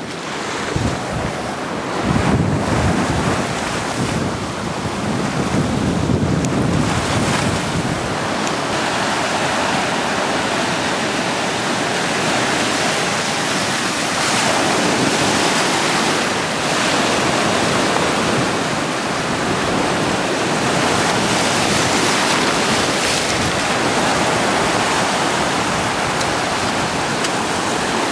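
Rough surf breaking and washing over a rocky shore, with wind buffeting the microphone, the low gusts heaviest in the first several seconds.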